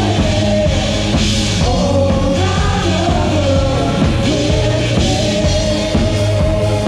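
A band playing rock-style worship music: a singer's voice carries a wavering, held melody over a full drum kit and backing instruments.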